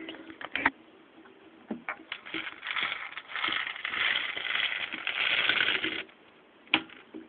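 Plastic airsoft BBs rattling and ticking as they are loaded into a spring pistol's magazine with the follower held down, a dense patter for several seconds in the middle. A sharp click comes near the start and another near the end.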